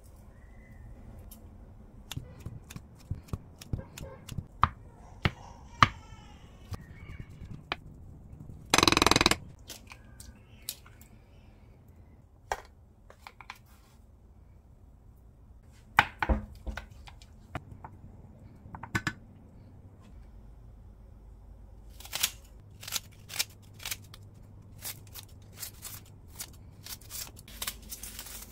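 Cooking handling sounds at a frying pan: scattered clicks and knocks, with one loud, brief noisy rush about nine seconds in. In the last six seconds, kitchen scissors snip a whole onion into the pan in a quick run of sharp snips.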